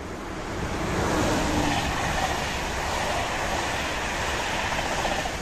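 Siemens Vectron electric locomotive and InterCity passenger coaches passing on the main line: a steady rush of wheels on rail that swells about a second in and begins to fade at the very end.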